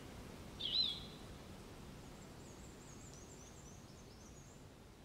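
Outdoor ambience with birds: one short, loud whistled bird call about a second in, then a run of faint, quick, high chirps, over a low steady background noise.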